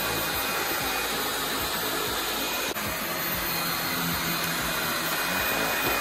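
LG CordZero A9 Kompressor cordless stick vacuum running steadily at normal speed, its multi-purpose floor head pushed over carpet and sucking up debris. The sound is a steady airflow hiss with a faint high whine.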